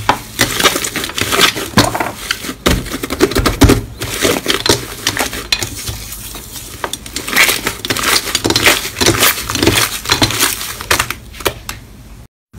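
Thick orange slime being kneaded, squeezed and pulled apart by hand in a glass dish: dense crackling and squishing pops that come in waves.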